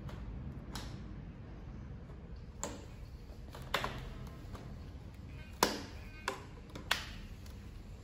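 A handful of sharp clicks and light knocks as hands handle the foam-and-plastic tail of a fixed-wing drone, the loudest about halfway through, over a low steady hum.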